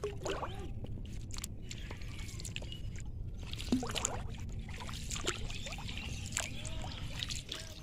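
Shallow pond water sloshing and trickling, with scattered small splashes and clicks, over a steady low rumble.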